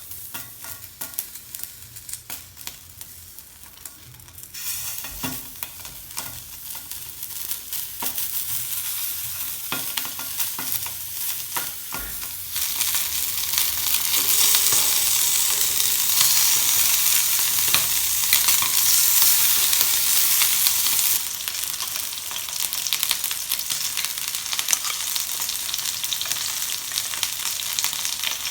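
Food sizzling in a hot pan, with stirring clicks and scrapes. The sizzle grows much louder about twelve seconds in and eases a little near twenty-one seconds.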